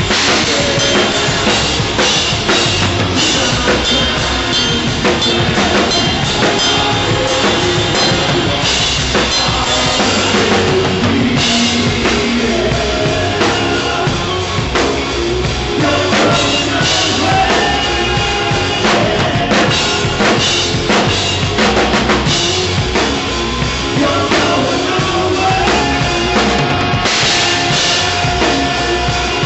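Tama drum kit playing a rock beat with bass drum, snare and cymbals, alongside the rest of the band's instruments holding sustained pitched notes. It is loud and continuous throughout.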